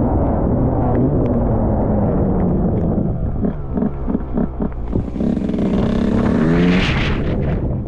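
Off-road motorcycle engine being ridden hard on a muddy track. About three seconds in it goes off the throttle with a string of low pulses, then revs up again with rising pitch and a hiss before backing off near the end.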